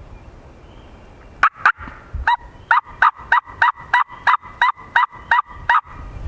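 A run of about fourteen loud, close turkey yelps, evenly spaced at roughly three a second, starting about a second and a half in and stopping near the end.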